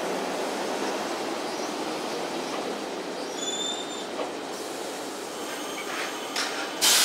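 Mizuma Railway 1000 series electric train, a stainless ex-Tokyu 7000 series set, rolling slowly along the platform with a steady rumble of wheels on rail. A brief high squeal sounds about three seconds in, and a sudden loud hiss breaks in near the end.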